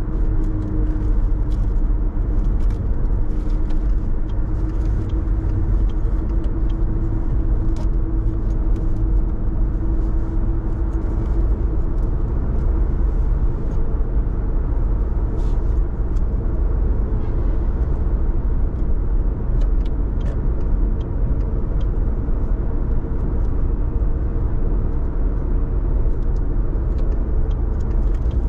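A car driving: steady road and engine noise, mostly a low rumble with a faint steady hum running through it.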